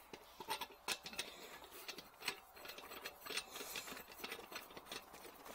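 Wrench turning on the threaded neck fitting of a water heater's expansion tank: faint, irregular metallic clicks and taps, several a second.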